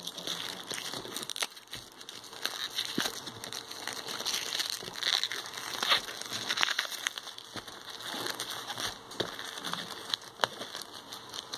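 Plastic shrink wrap crinkling and crackling as fingers pick at it and peel it off a metal steelbook case, with scattered sharp clicks.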